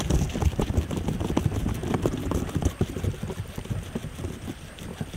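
Guinea pig chewing fresh grass close to the microphone: a fast run of crisp crunches and clicks that thins out over the last couple of seconds.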